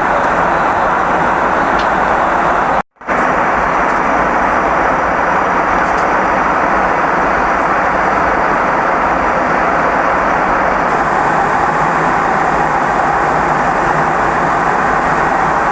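Aircraft cabin noise in flight: a steady rushing drone, broken once by a brief dropout to silence about three seconds in.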